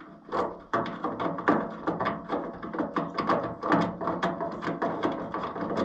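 Irregular small clicks, taps and rattles of a starter push-button and its wiring being worked by hand into the sheet-metal dash panel of a Case VAC tractor.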